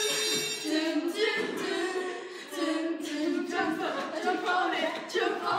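A group of girls singing together unaccompanied, several voices holding and sliding between notes.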